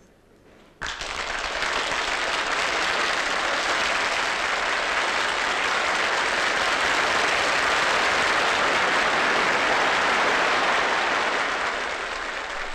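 A large audience applauding, starting suddenly about a second in and easing off slightly near the end.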